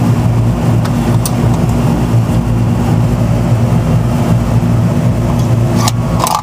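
Steady electrical hum of running machinery, with two light clicks near the end.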